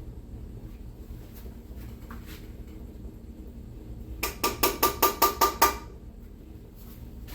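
A measuring cup rapped on the rim of a cooking pot about eight times in quick succession, ringing, knocking the last of the tomato sauce out of the cup.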